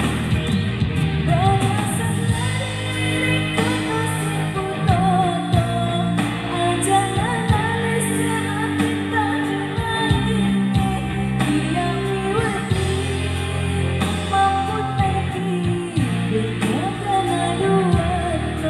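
A song: a singer's voice carrying a wavering melody over steady instrumental backing.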